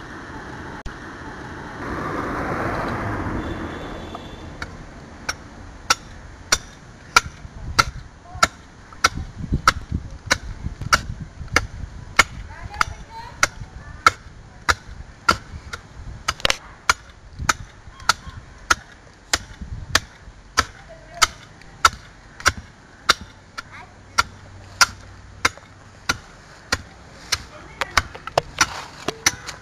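A hand axe chopping at a laterite building block to trim and shape it, sharp strikes at a steady pace of about three every two seconds. A louder rough noise lasts a couple of seconds near the start, before the strikes begin.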